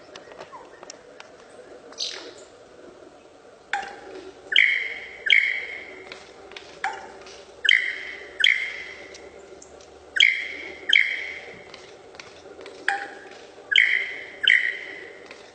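A bird calling repeatedly: about a dozen loud, sharp, ringing notes, often in pairs less than a second apart, each starting with a click-like attack and ringing briefly before it fades. A faint steady hum runs underneath.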